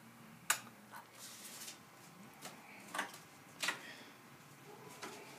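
A few sharp, light clicks and taps with a brief rustle, the sound of small objects and papers being handled at a desk.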